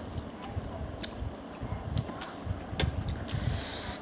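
Close-up eating sounds: noodles being chewed, with soft irregular thuds and a few sharp clicks.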